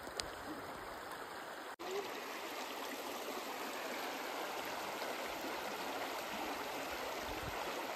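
Mountain stream flowing with a steady rush of water, briefly cutting out about two seconds in.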